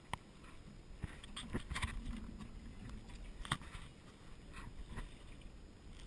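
Camera handling noise in a small jon boat: scattered light knocks and rubbing as the camera is moved about, with one sharper knock about three and a half seconds in.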